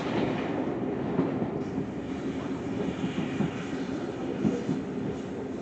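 Passenger coach of a heritage train running along the line, heard from inside: a steady rumble of the wheels on the track with occasional knocks.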